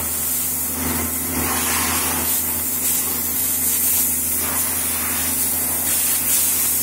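Steady hiss of a high-pressure jet from a hand-held hose nozzle played over a motorcycle, swelling and easing every second or so, over the steady hum of the machine driving it.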